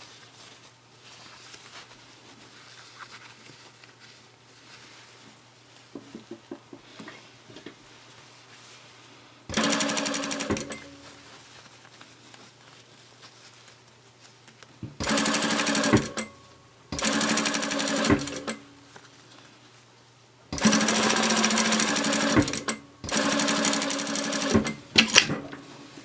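Electric sewing machine stitching in five short runs of a second or two each, starting and stopping abruptly as the fabric is fed and turned between seams. Before the first run there is only quiet fabric handling with a few faint clicks.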